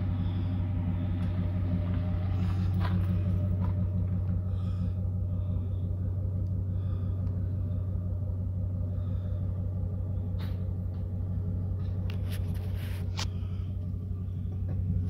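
Steady, deep low rumble filling the cabin of a 2006 Ford Expedition, unchanging in pitch, with a few short sharp clicks or rattles between about ten and thirteen seconds in.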